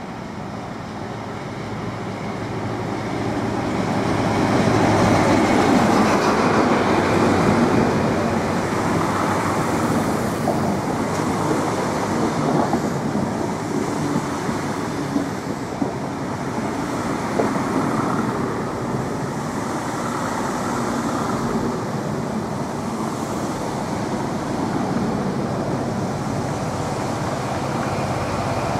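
East Midlands Trains HST (InterCity 125) with a Paxman VP185 diesel power car, running slowly past a platform. The power car's engine grows louder over the first five seconds or so and then holds steady as the Mk3 coaches roll by, with a few sharp wheel clicks over rail joints along the way.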